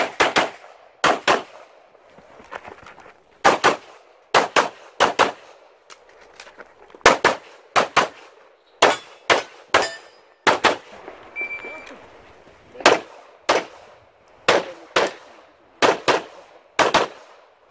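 Handgun fired rapidly during an IPSC stage run, mostly in quick pairs of shots with short pauses between groups as the shooter moves between target arrays.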